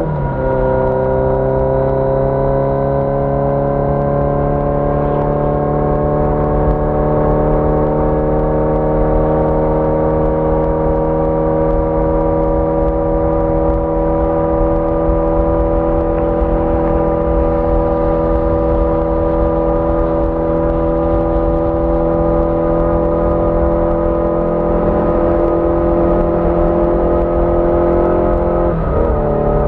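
1981 Yamaha XJ650 Maxim's air-cooled inline-four engine pulling steadily under way. Its pitch drops with a gear change at the start, climbs slowly as the bike gains speed, then drops again with another shift near the end.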